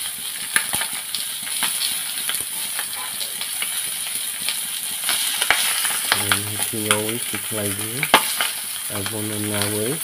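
A whole chicken frying in hot oil in an iron wok, sizzling steadily with frequent sharp crackles and pops. A low voice-like hum comes twice in the second half.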